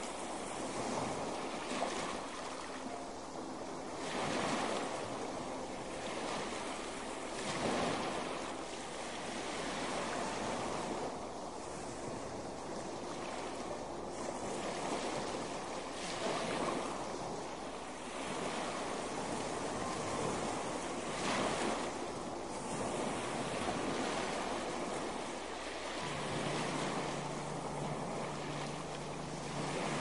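Ocean surf: waves breaking and washing up a sandy beach in a steady rush, swelling louder every few seconds as each wave comes in.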